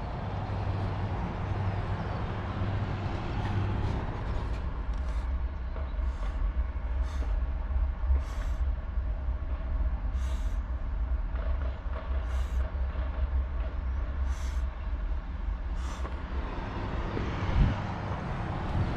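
An owl hatchling hissing in short, high bursts every second or two, over a steady low rumble.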